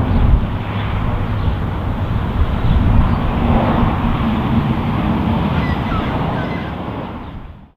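Low, steady rumble of a distant Airbus A330-300 jet airliner on approach, mixed with wind buffeting the microphone. The sound fades out quickly just before the end.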